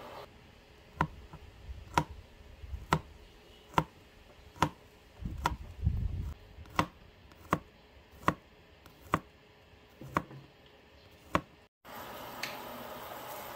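Chef's knife slicing garlic cloves on a plastic cutting board: single sharp knocks about once a second, a dozen or so. Near the end the knocking stops and a steady hiss takes over.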